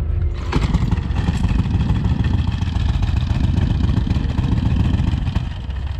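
A motor vehicle's engine running loudly close by. It comes in sharply about half a second in and eases back just before the end.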